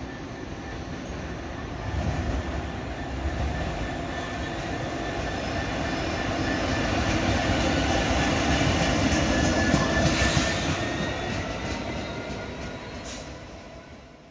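Freightliner Class 66 diesel locomotive, with its two-stroke V12 engine, passing close by: engine and wheel rumble build to a peak about ten seconds in, then fade as it draws away. A thin, steady high squeal runs underneath.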